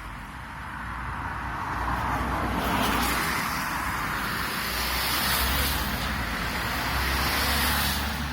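Road traffic on a wet road: a car's tyres hissing on the wet surface, the noise swelling over the first couple of seconds, holding, and easing off near the end.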